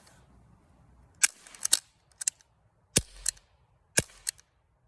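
Barra 1858 CO2 BB revolver being cocked and fired: a series of sharp clicks and snaps, the loudest spaced about a second apart.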